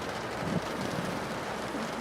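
Steady rain pattering on a window, with a pug snoring under it: short low snores about half a second in and again near the end.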